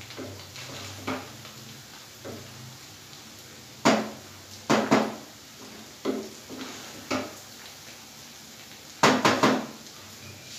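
Wooden spatula knocking and scraping against a nonstick frying pan while cooked rice is turned and mixed, in irregular strokes a second or two apart.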